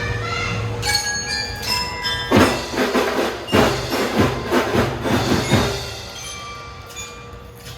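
Children's marching drum band playing: ringing glockenspiel-like bell notes, then a run of sharp drum strikes under the melody, easing off to softer held notes near the end.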